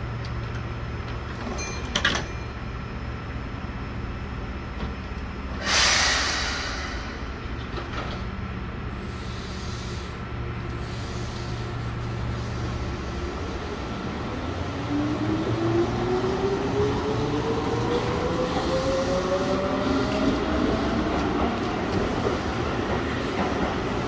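Keihan electric commuter train pulling out of a station. It hums steadily at first, with a click about two seconds in and a brief loud hiss around six seconds. From about fourteen seconds a motor whine rises steadily in pitch and the noise grows louder as the train gathers speed past the platform.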